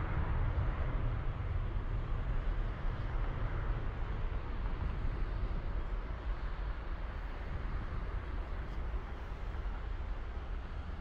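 Distant KLM jet airliner's engines, a steady low rumble that slowly fades as the aircraft rolls away along the runway.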